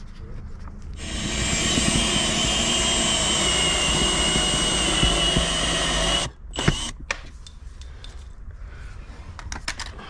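A power tool running steadily for about five seconds with a thin high whine over a hiss, then cutting off suddenly; a sharp click follows soon after.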